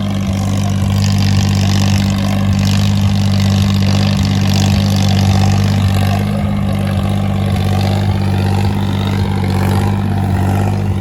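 Tractor's diesel engine running loud and steady, its exhaust drowning out the music system playing beside it.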